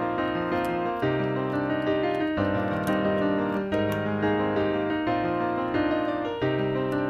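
Background piano music, a slow run of sustained notes and chords.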